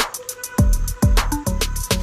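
Electronic background music with a fast beat of kick drums and hi-hats.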